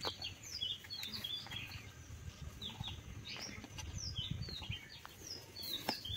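Small birds chirping, many short falling chirps several times a second, over a soft low rumble.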